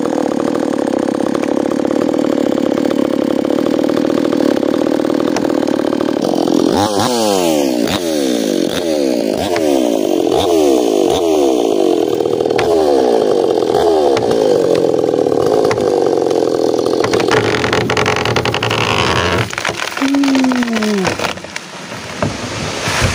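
Small chainsaw running at high revs while cutting into a dense hardwood tree. About seven seconds in, its pitch starts sagging and recovering over and over, roughly once a second, then holds steady before the engine winds down with a falling tone near the end.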